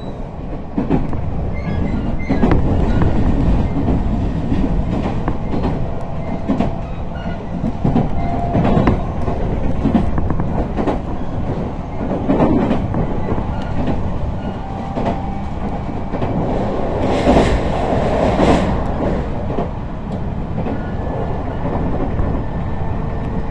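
Local train running, heard from inside the carriage: a steady rumble of wheels on rail with repeated clacks as the wheels pass over rail joints and points, louder and harsher for a couple of seconds about seventeen seconds in.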